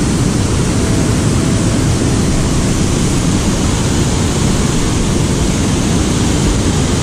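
Steady loud rush of water pouring over a dam spillway and churning through whitewater rapids.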